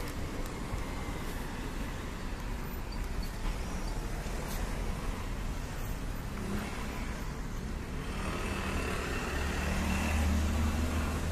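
Street traffic: cars driving past on a town road, with one car passing close near the end, its engine rumble growing louder.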